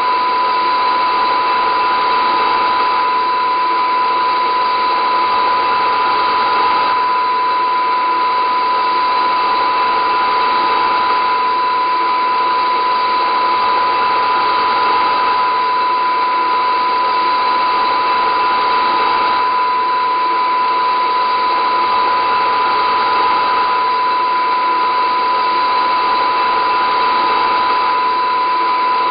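Steady, unchanging drone of many held tones over a hiss, with one strong high tone above the rest.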